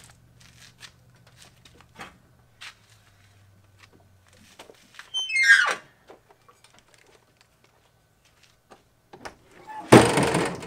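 Jeep's swing-out rear tire carrier swung open, its hinge giving one loud squeal that falls steeply in pitch, then a loud clatter near the end as the tailgate and rear glass are opened, with light clicks and taps in between.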